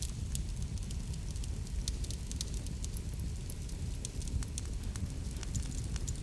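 Wood fire burning in a fireplace: a steady low rumble with many small, sharp crackles and pops scattered irregularly throughout.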